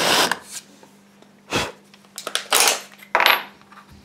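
A cordless drill with a countersink bit cutting into MDF stops a moment in. After that come several short, sharp metallic clacks and knocks as the drill is handled.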